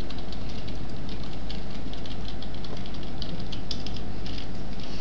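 Steady low hum and hiss of the recording's background noise, with a few faint, scattered clicks.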